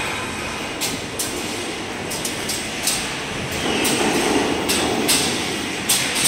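Factory workshop noise: a steady machinery din with frequent sharp clicks and knocks at uneven intervals, and a louder hiss for about a second and a half near the middle.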